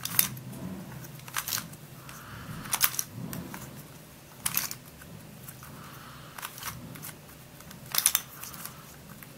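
Plastic clicks of a Curvy Dino twisty puzzle being turned by hand as it is scrambled: short sharp clicks at irregular intervals, some in quick pairs.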